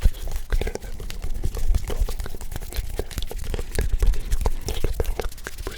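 ASMR hand sounds: hands rubbing and moving close to the microphone, a dense, irregular crackle of small clicks and rustles with a deep thump of close handling.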